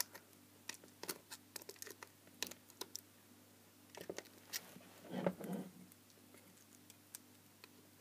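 Small screwdriver scraping and picking at the edge of an LED spotlight's sealed housing, prying at a circuit board that seems glued in: irregular faint clicks and scratches, with a louder, fuller scrape about five seconds in.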